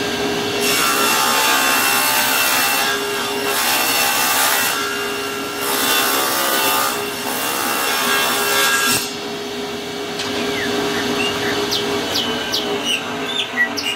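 Table saw ripping thin slats of caixeta wood. The blade runs with a steady hum, and four times in the first nine seconds it swells into loud cutting noise as the strip is fed through, then runs quieter.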